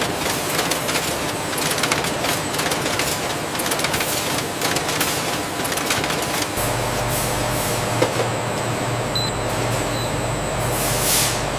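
Automated food-production line machinery running: dense, rapid clattering, joined about six and a half seconds in by a steady low hum, with a short hiss near the end.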